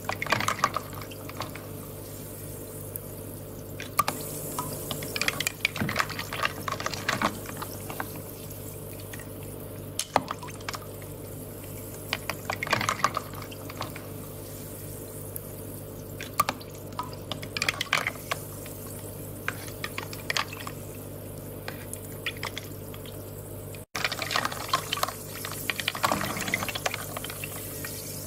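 Water trickling and dripping in irregular bursts of small crackly drops and bubbles, over a steady low hum.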